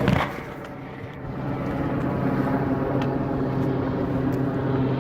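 A motor engine running with a steady hum, dipping briefly in loudness about a second in.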